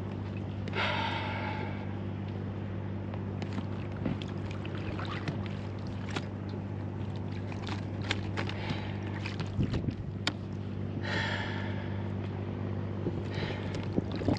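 A small boat motor runs with a steady hum while small waves slap and click against an inflatable boat's hull. Brief hissing splashes come about a second in and again about eleven seconds in.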